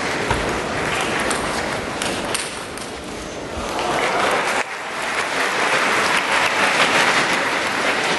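Arena crowd applauding a won point in a table tennis match. The applause swells louder about four seconds in, and a few sharp taps come in the first couple of seconds.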